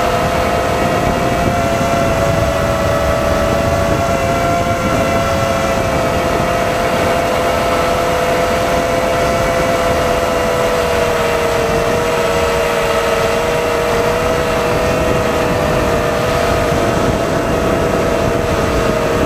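FPV drone's motors and propellers whining steadily at two close pitches, over rushing wind-like noise, holding an even throttle.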